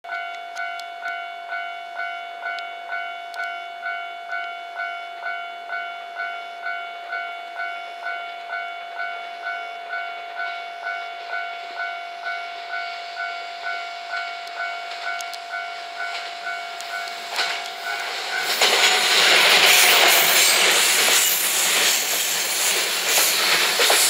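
Japanese level-crossing alarm ringing its electronic bell in a steady beat of about two strokes a second. About eighteen seconds in, a four-car JR West 227 series electric train (two 2-car sets) passes close by, and the noise of its wheels and motors rises loud over the bell.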